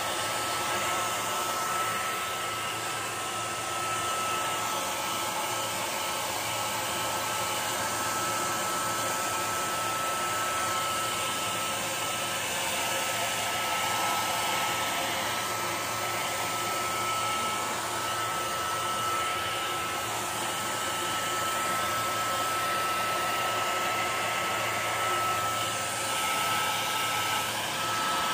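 Handheld hair dryer running steadily, blowing air with a steady high whine.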